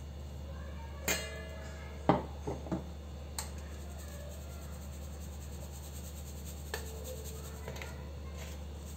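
Stainless-steel sieve clinking and knocking against a steel plate as it is shaken to sift ground spice powder. There is a metallic clank with a brief ring about a second in, three quick knocks around two seconds, and another ringing clink near seven seconds, over a steady low hum.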